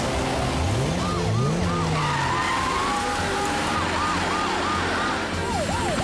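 Cartoon police car's siren yelping in quick rising-and-falling sweeps, about three a second. A car engine revs up twice about a second in.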